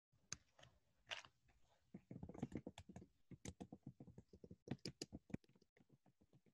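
Near silence with faint, rapid, irregular clicking and ticking, thickest in the middle and thinning out near the end.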